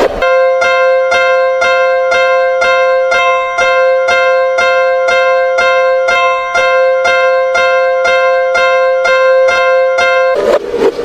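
Japanese railroad crossing (fumikiri) alarm bell ringing: one bright bell tone struck over and over, about twice a second, until it stops near the end.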